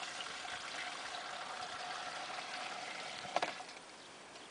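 Liquid pouring steadily into a plastic knapsack sprayer's tank as it is filled. It stops about three and a half seconds in with a short click.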